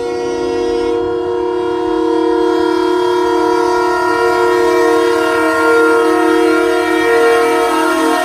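A semi truck's air horn sounding one long, unbroken multi-note chord, growing louder as the truck draws near.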